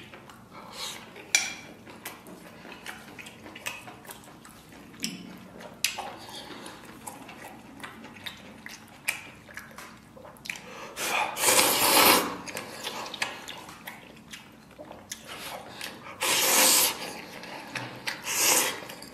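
A person slurping instant noodles off chopsticks in three long, loud slurps: the first about eleven seconds in, the other two close together near the end. Small clicks and soft chewing sounds come between the slurps.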